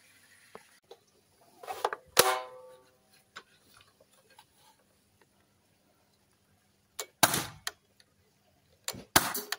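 Three shots from a CO2-powered 4.5 mm BB rifle, widely spaced. Each is a pair of sharp cracks less than half a second apart, and the first pair ends in a short ringing tone.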